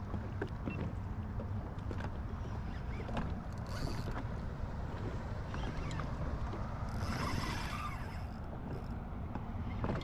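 Wind buffeting the microphone over choppy open water as a fish is played from a jet ski, a steady low rumble. Brief bursts of hiss about four seconds in and again from about seven to eight seconds in.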